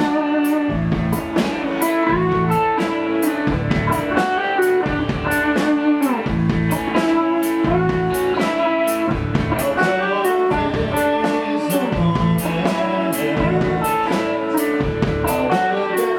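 Band music with electric guitar over a drum kit, cymbals marking a steady beat.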